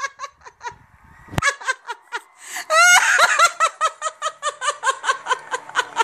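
A person laughing hard and high-pitched in quick repeated bursts, getting louder and more constant from about halfway through. There is a single sharp click about a second and a half in.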